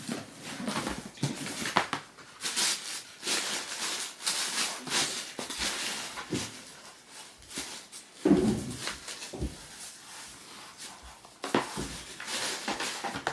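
Cardboard shoebox being handled and opened: irregular rustling, scraping and knocking, with the loudest bump a little past the middle.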